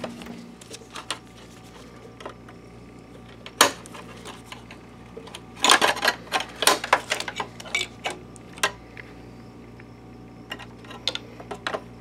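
Scattered clicks and taps of a tool and gloved fingers working a wire and its plastic connector loose inside a projector's chassis, with a sharp click about three and a half seconds in and a quick run of clicks around six seconds.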